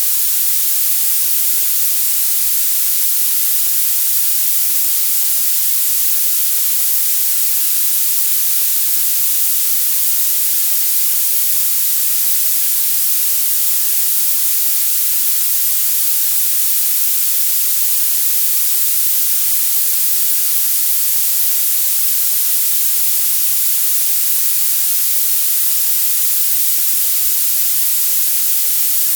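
Violet noise: a steady, unbroken high-pitched hiss with its energy rising toward the top of the range and almost no low end.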